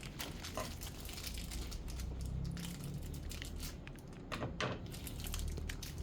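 Crinkling and rustling of packaging being handled, with scattered small clicks, over a low steady hum.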